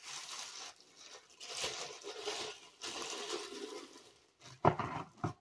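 Thin clear plastic bag crinkling and rustling as a ceramic wax warmer is worked back into it, in uneven bursts, with a couple of short louder sounds near the end.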